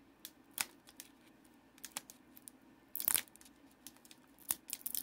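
Foil booster pack crinkling and crackling in the fingers as it is worked open by hand, with a short louder tearing rip about three seconds in.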